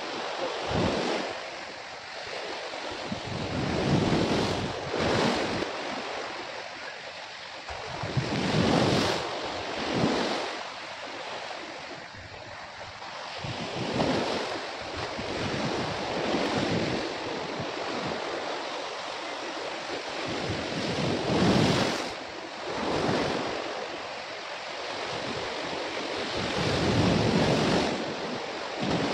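Sea waves washing in over a rocky shore, rising and falling in surges every few seconds, with wind buffeting the microphone.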